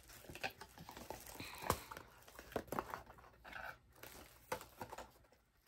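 Faint rustling of a paperboard perfume box with a few light taps and clicks as a glass perfume bottle is handled with it.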